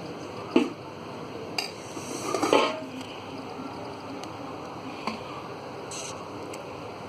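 Metal spoon or spatula knocking and scraping in a pan while stirring leftover rice being fried, a few sharp clinks and one longer clattering scrape about two seconds in.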